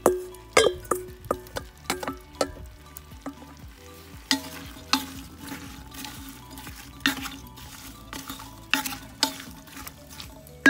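Bacon, carrot and onion sizzling in butter in an Afghan kazan while being stirred, the utensil clicking and scraping against the metal pot, most often in the first few seconds.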